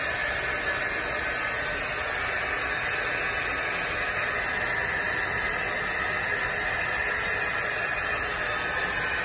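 Hand-held hair dryer running steadily, blowing hot air onto a dog-chewed plastic credit card to heat it.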